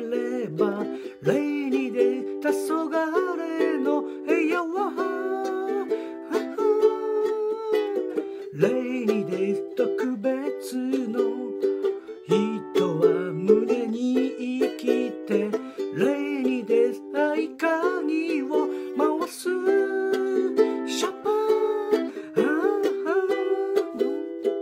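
Ukulele strummed in a steady rhythm through changing chords. A voice sings along in places, its pitch gliding up and down.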